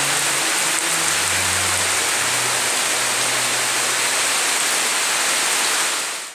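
Heavy rain pouring down onto standing water and foliage, a dense steady hiss that cuts off suddenly at the end.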